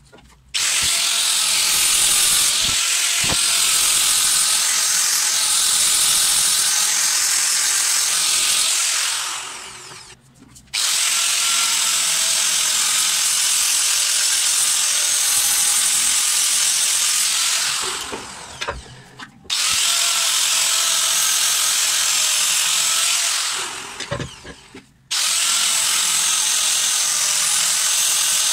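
Angle grinder grinding the steel jaws of a bench vice: a loud, steady grinding whine. The grinder is switched off and winds down three times, each time starting again abruptly.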